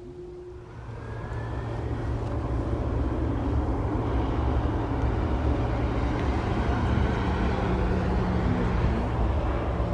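Boeing 767 twin-jet airliner's engines spooling up for takeoff: a thin whine rises about a second in, then a low rumble grows louder over the next two seconds and holds steady with a low hum.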